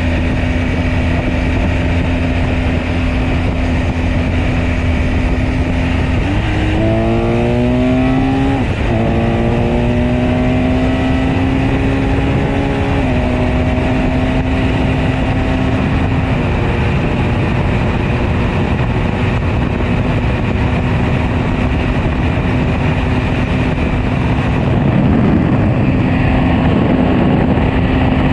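BMW R 1250 GS Adventure Rally's boxer-twin engine running under a ride, with a steady rushing noise beneath it. About six seconds in the engine note climbs, drops back with a gear change, and climbs again before settling to a steady cruise.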